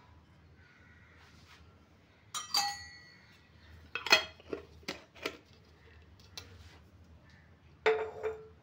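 Steel kitchen vessels and containers clinking and knocking together as they are handled, about six separate strikes with the loudest cluster about four seconds in; two of them ring briefly.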